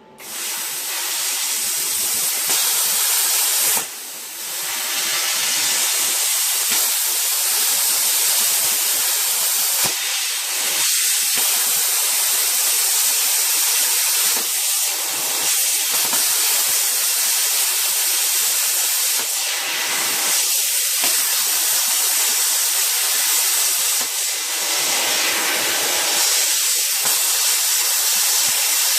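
Plasma cutter cutting through a steel circular saw blade: a loud, steady hiss of the air-driven arc that starts at once, drops out briefly about four seconds in, then runs on.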